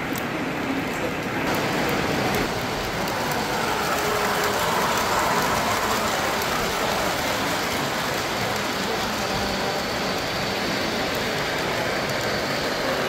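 Three-rail model trains running on the layout's track: a steady rushing rumble of metal wheels rolling on the rails.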